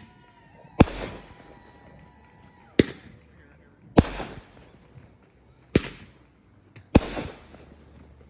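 Consumer fireworks going off: five sharp bangs about one to two seconds apart, each followed by a short crackling tail as it fades.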